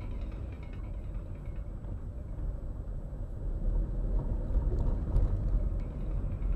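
Steady low rumble of a car driving, engine and road noise heard from inside the cabin, growing slightly louder in the second half.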